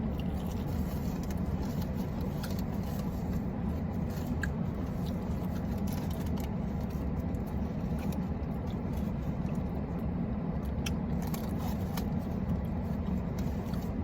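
Steady low rumble of an idling car, with a few faint clicks and scrapes from handling takeout food and packaging.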